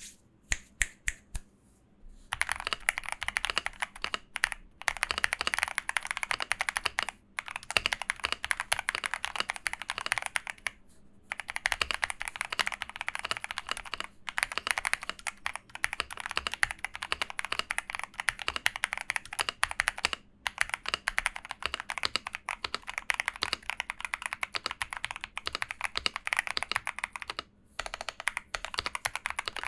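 Typing on a Monka AE75 75% gasket-mounted mechanical keyboard modded with three layers of tape on the PCB back and lubed stabilizers. A few single keystrokes, then fast continuous typing broken by several short pauses.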